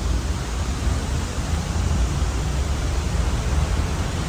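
Water released over Horseshoe Dam's spillway cascading down the waterfall: a loud, steady rush with a deep rumble underneath.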